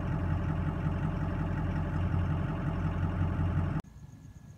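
2004 Ford F250's engine idling steadily, heard from inside the cab. About four seconds in it cuts off suddenly, leaving only a faint hum.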